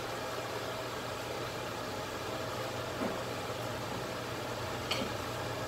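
Fan running steadily: a low hum under an even hiss, with a light tap about five seconds in.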